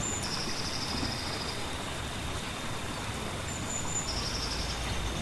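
Jungle ambience of steady rain with a low rumble beneath it and a thin steady high tone. A bird calls twice, each time a short high whistle followed by a longer trill: once at the start and again near the end.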